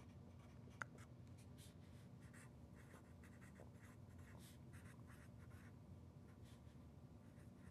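Faint strokes of a felt-tip marker writing by hand on paper, in short irregular scratches, with one small click about a second in.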